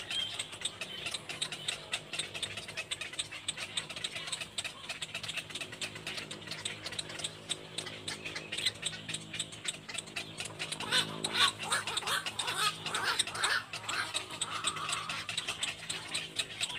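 Little black cormorant chick calling, a quick run of short rasping notes about eleven seconds in, over a constant background of fine clicking.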